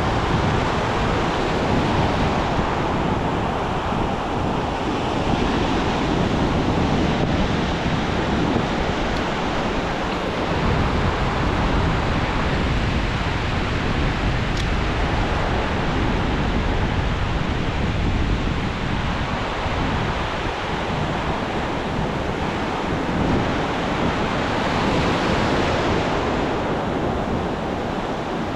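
Ocean surf washing onto the beach in a steady hiss, swelling louder a few seconds in and again near the end as waves break, with wind rumbling on the microphone.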